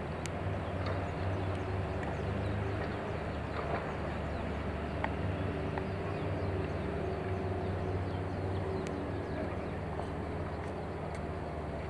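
Steady low hum of an idling diesel engine, with a few faint clicks and knocks.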